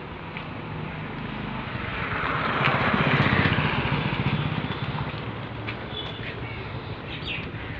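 A motor vehicle passes by, growing louder to a peak about three seconds in and then fading, over a steady low engine hum.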